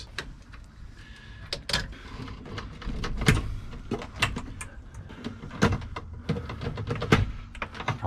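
Irregular sharp clicks and knocks of plastic and metal parts being handled while a turn signal switch is worked loose from a steering column.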